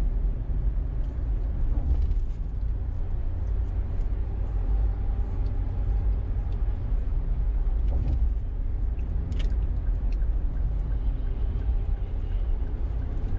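Steady low rumble of tyre and engine noise inside a car cruising at about 42 mph.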